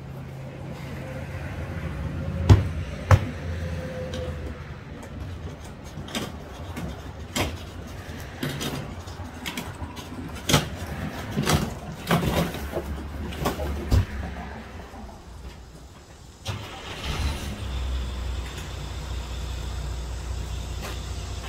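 Cardboard appliance boxes being shifted on a loaded metal hand truck, which is then wheeled off: a string of knocks and thumps, the loudest two about two and a half and three seconds in, over a low steady engine hum.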